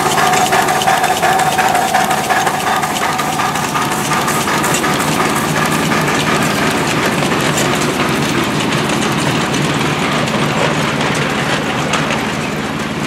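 Minimal gauge locomotive running steadily, with a high whistle-like tone that fades out over the first few seconds.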